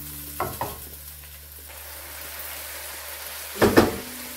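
Vermicelli and carrots sizzling gently in butter and oil in a pan, with two light utensil clicks about half a second in and a louder clatter of utensil against pan near the end.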